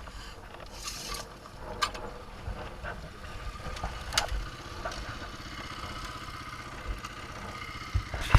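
A vehicle engine running steadily at low revs, with a few sharp clicks and a thump near the end.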